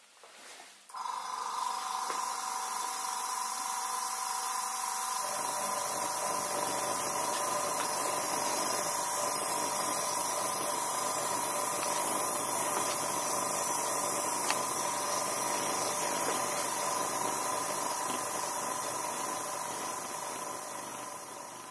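Compressed air hissing through a model Stuart S50 steam engine as it turns over on air for its first run, assembled without gaskets or gland packing. The hiss, carrying a steady tone, starts about a second in and cuts off suddenly at the end.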